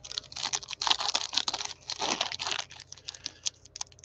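A Panini Prizm cellophane card pack being torn open and its wrapper crinkled by gloved hands: a quick, uneven run of crackles and rustles, thinning out toward the end.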